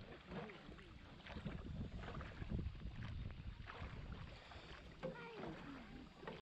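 Water sloshing and splashing around a small wooden rowed sampan as it is paddled along a calm river, with a low rumble of wind on the microphone and scattered soft knocks.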